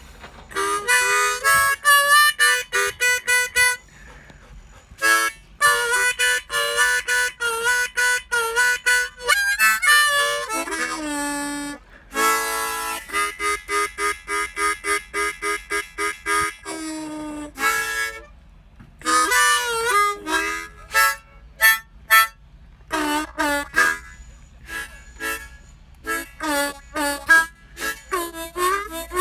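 Blues harp (harmonica) played solo: phrases of short, rhythmic repeated notes and bent notes sliding in pitch, broken by brief pauses.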